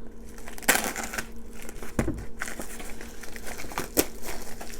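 A shipping package crinkling and rustling as it is handled, with irregular crackles and a few sharper clicks, the loudest about a second in and near the end.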